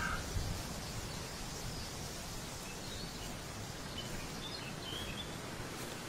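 Steady rustling hiss of a forest's leaves in the wind. A short chirp sounds at the start, and a few faint, high bird chirps come between about three and five seconds in.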